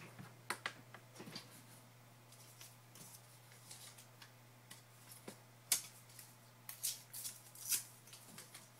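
Small slips of paper being handled and dropped onto a desk: scattered light rustles and sharp little clicks, a few of them louder, over a steady low hum.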